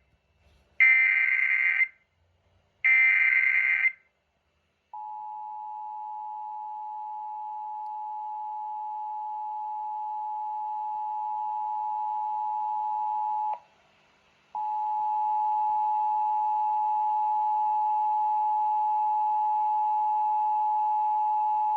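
Emergency Alert System SAME header: short bursts of digital data warble. After about a second's pause comes the EAS two-tone attention signal (853 and 960 Hz), a steady two-note tone that drops out for about a second near the middle and then resumes louder.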